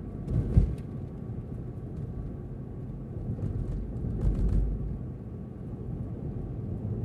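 Steady low rumble of a car driving, engine and tyre noise heard from inside the cabin, with a sharp thump about half a second in and a brief louder bump around four seconds in.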